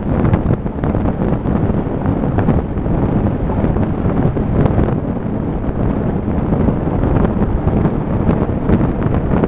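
Vehicle driving over a rough dirt road, heard from inside the cabin: a steady loud rumble with frequent short knocks and rattles from the bumpy surface.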